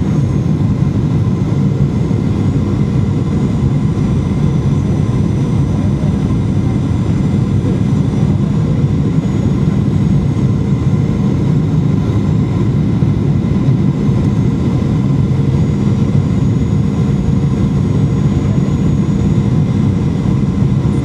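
Steady cabin noise of a jet airliner descending to land, heard from inside: engines and rushing air make an even low rumble with a few faint steady tones above it.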